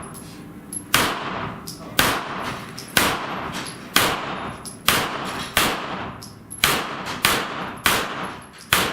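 A string of about ten gunshots fired at a steady pace, roughly one every second or a little faster, each followed by a short decaying echo. This is a shooter working through a course of steel plate targets.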